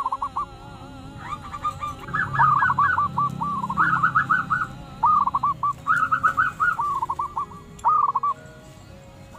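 Several zebra doves (perkutut) calling together, their quick runs of short cooing notes overlapping at two pitches in repeated phrases. The calls thin out into a lull near the end.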